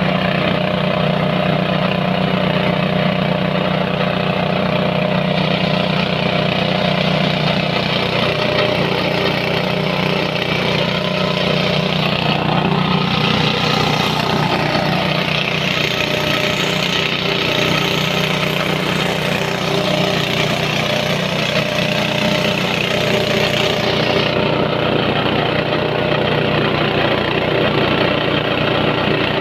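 Rice husk grinding machine running steadily, a constant engine-like hum under a rushing hiss. The hiss grows louder and brighter through much of the middle stretch, then eases back about 24 seconds in.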